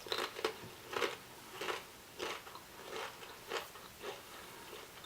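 Close-up chewing of Pringles potato crisps: a run of crisp crunches at a steady chewing pace, about three every two seconds, growing fainter as they are chewed down.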